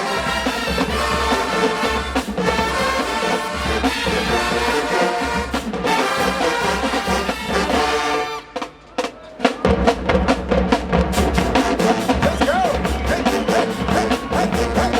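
HBCU marching band playing: the brass section holds chords over the drums, breaks off briefly about eight seconds in, then comes back with the drumline driving a fast, steady beat.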